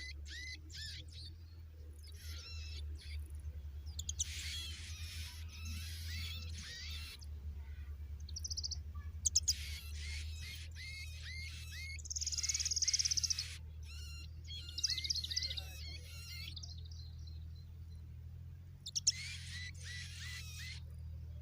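Young birds chirping in quick, repeated clusters of short high calls, with one louder run of calls about halfway through, over a steady low hum.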